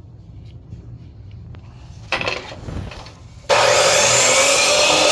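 A handheld power tool cutting a carbon-block water filter cartridge. A short rasping cut about two seconds in is followed by the tool running loud and steady for about a second and a half, and it starts winding down near the end.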